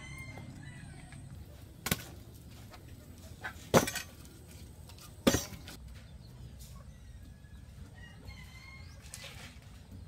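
Three sharp knocks, about a second and a half to two seconds apart, the second the loudest, over faint bird chirps.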